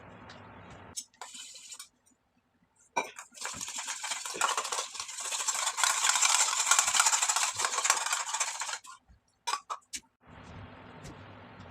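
Slime ingredients being handled and mixed in a bowl: a loud, dense crackly scraping for about five seconds, with a few sharp clicks and knocks before and after it.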